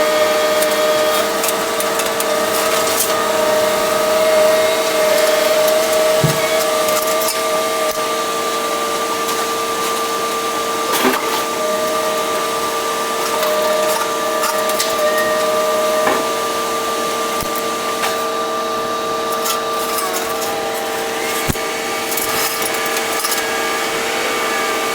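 A steady mechanical whine made of several held tones, with scattered light clicks and knocks.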